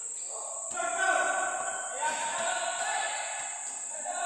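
Indistinct voices and held, sung-sounding notes echoing through a large indoor basketball gym, over a steady high-pitched hiss, with one light knock about two seconds in.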